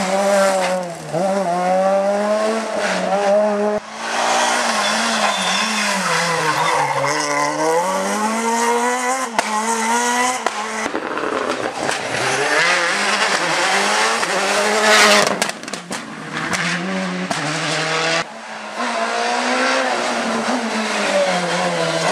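Several rally cars, among them a Peugeot 207 S2000 and a Citroën Xsara WRC, taking corners one after another with engines revving up and down through the gears and tyres squealing. The sound breaks off abruptly every few seconds as one car gives way to the next.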